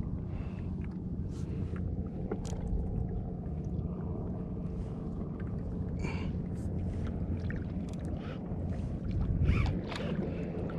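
Water slapping and lapping against a fishing kayak's hull over a steady low rumble, with short splashy hits scattered through and the rumble swelling loudest about nine and a half seconds in.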